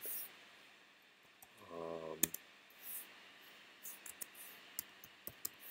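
Computer keyboard keys tapped in scattered single clicks, with a small cluster of keystrokes near the end, as a filename is backspaced and retyped. A short hum from a voice about two seconds in.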